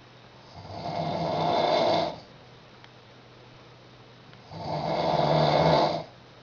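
A sleeping woman snoring loudly: two long snores about four seconds apart, each swelling in loudness and then cutting off sharply.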